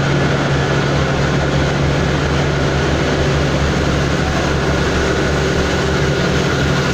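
Diesel train engine running steadily: a loud, even drone with a constant low hum.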